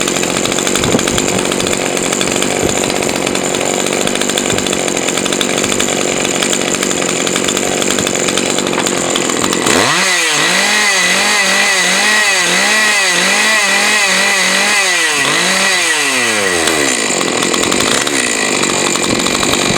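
Husqvarna 543 XPG two-stroke chainsaw, bar and chain off, running at high revs for about ten seconds, then revved up and down roughly once a second. It drops toward idle and climbs back to high revs near the end. The owner guesses the carburettor tuning is not optimal, with rpm on high too low.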